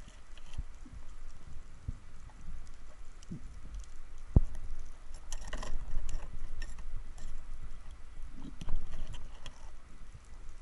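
Underwater knocks and clicks of a speargun and diving gear against rock, with a sharp low thud of the speargun firing about four seconds in. A short rattle follows, and another loud knock near the end.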